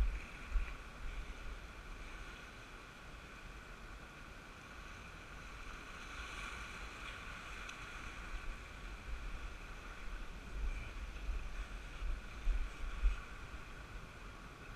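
Wind buffeting the microphone in uneven gusts, over a steady wash of surf breaking on jetty rocks; the gusts are strongest a little after the middle.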